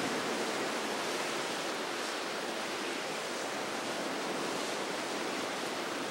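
Steady rush of wind and waves off a choppy, whitecapped sea.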